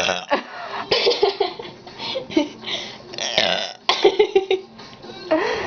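A woman burping several times in a row, about six separate belches each lasting under a second.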